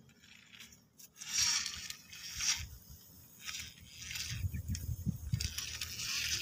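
Plastic toy vehicles being handled: several short scraping, rustling bursts with a few low knocks in between.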